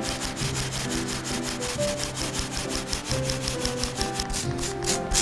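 Powdered sugar being shaken through a fine mesh sieve: a fast, even rasping rhythm, stronger near the end.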